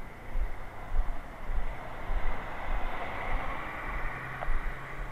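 Street traffic: a passing vehicle's tyre and engine noise swells through the middle and eases off, over dull low thumps at walking pace, with a steady low engine hum setting in near the end.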